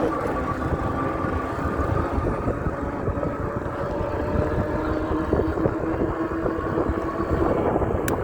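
Electric bike riding at a steady speed: its motor gives a constant whine under heavy wind and road rumble on the microphone.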